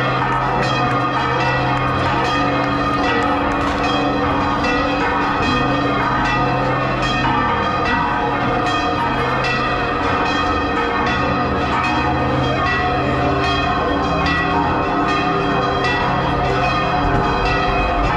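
Church bells ringing a continuous peal, several bells struck in quick succession, their tones ringing on and overlapping.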